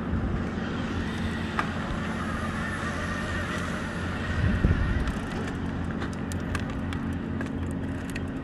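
A motor vehicle's engine running steadily with road noise, with a brief louder swell about four and a half seconds in.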